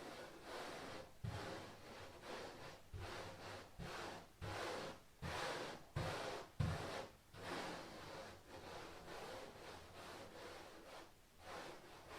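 Repeated rubbing strokes, roughly one to two a second, each a short burst of scratchy noise, with a few soft low knocks between them.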